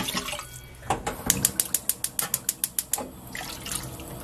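Beef and radish broth poured from a small stainless-steel pot into a larger one, with a quick run of sharp drips, about eight a second, for a second and a half in the middle.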